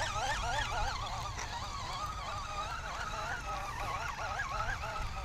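Baitcasting fishing reel being cranked steadily to retrieve a topwater prop frog, its gears giving a warbling whine that wavers up and down in pitch with the turns of the handle.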